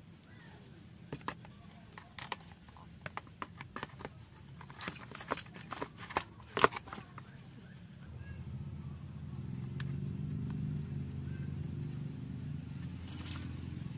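Clicks and knocks of hard plastic and metal parts being handled as the top housing of a mini chainsaw is fitted back on over its engine. About eight seconds in, a low steady hum comes up and continues.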